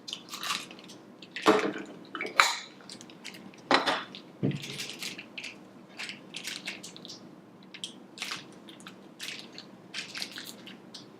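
Surprise-toy packaging being opened and handled: irregular crinkling and rustling, with the loudest crackles in the first four seconds.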